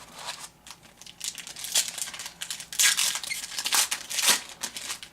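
Crinkling and tearing of a trading-card pack wrapper being ripped open and handled, a dense run of crackles that is loudest toward the end.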